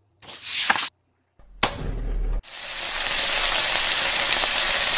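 Two short swishing sound effects, the second with a low thud, then from about two and a half seconds in a steady sizzle of food frying on a covered electric hot plate.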